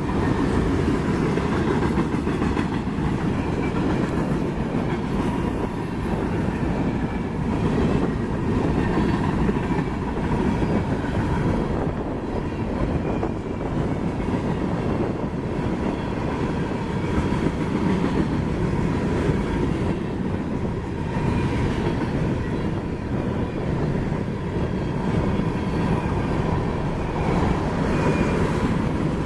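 Freight train cars rolling past: a steady rumble of wheels on rail with clickety-clack over the joints, and a faint steady whine running through it.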